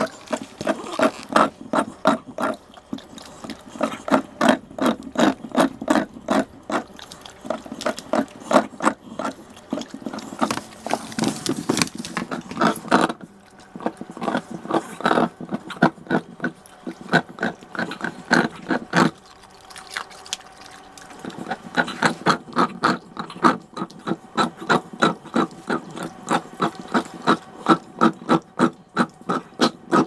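American Bully dog licking and chewing at a chunk of ice: a fast, rhythmic run of short noisy strokes, about four a second, easing off briefly a little past the middle.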